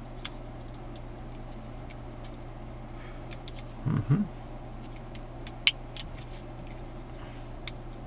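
Small plastic clicks and ticks from a car-stereo wiring-harness connector being handled as its locking clip is worked into place: a few scattered clicks, the sharpest about two-thirds of the way through, over a steady low hum.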